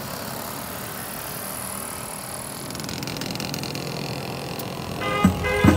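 VéloSoleX moped's small two-stroke engine running steadily as it rides along. Near the end a band starts playing, with drum beats.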